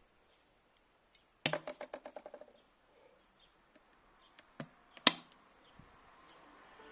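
Handling knocks: a short rattle of about ten quick clicks lasting about a second, then two sharp knocks about half a second apart, the second the loudest. No vacuum motor is running.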